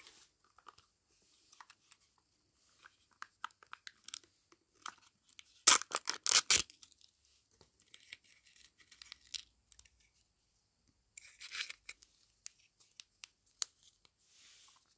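A small toy packet being torn open by hand, crinkling with scattered clicks. The loudest run of ripping comes about six seconds in, and a shorter rip comes near eleven seconds.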